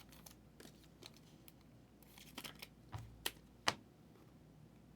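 Trading cards being handled: a few faint scattered taps and clicks, the sharpest two a little past the middle.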